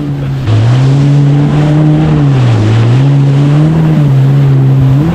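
Kawasaki jet ski engine running under way over water and wind noise; it gets louder about half a second in, its pitch dips about halfway through and then climbs back up.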